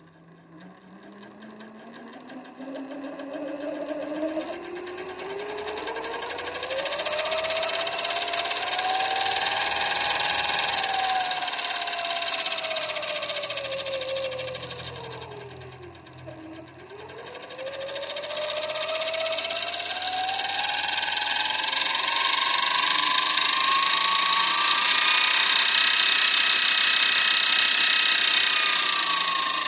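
Microlux 7x16 variable-speed mini lathe spinning up under its speed knob: its motor and drive whine rises steadily in pitch over about ten seconds, dips low about halfway through as the speed is turned down, then climbs higher still and starts to fall near the end.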